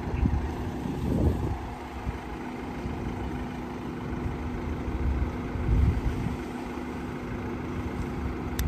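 Outdoor noise: irregular low rumbling gusts, like wind buffeting the microphone, over a steady low hum.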